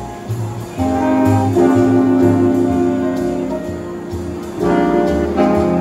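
School jazz ensemble playing a jazz blues: the saxophone and horn section holds long chords over bass and drums. A fresh horn phrase comes in about a second in, and another near the end.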